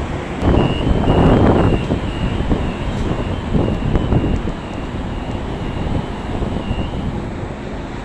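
Door warning beeper of a Siemens S200 (LRV4) light-rail car sounding before departure: a high beep repeating about twice a second for some six seconds, over a steady low rumble. A loud rush of noise comes about half a second in and lasts about a second.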